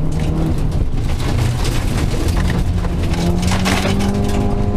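Rally car engine heard from inside the cabin at speed on a gravel road. The engine note drops briefly early on, then climbs steadily as the car accelerates, with gravel noise and sharp knocks from stones against the car.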